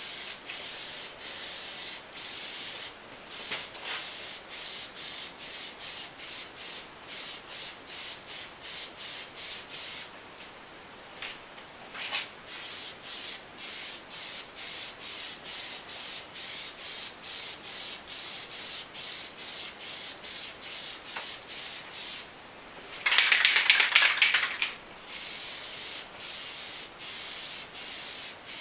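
Aerosol can of Plasti Dip rubber coating hissing as it is sprayed, pulsing a few times a second. There is a short lull about ten seconds in and a louder stretch of hiss lasting about two seconds near the end.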